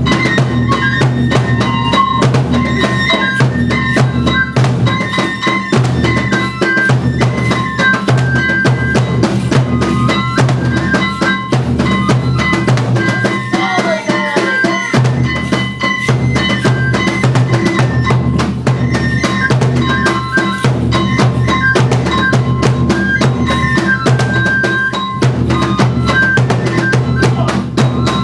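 Kagura ensemble music: taiko drums beating steadily and densely under a high bamboo-flute (fue) melody of held notes that step between pitches.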